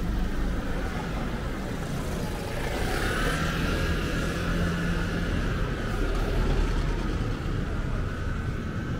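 Street traffic: a motor vehicle running close by with a steady low rumble. A higher, slightly wavering tone joins in about two and a half seconds in.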